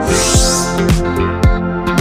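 Background electronic music with a steady, deep kick drum about twice a second under held chords, and a swell of hiss about half a second in.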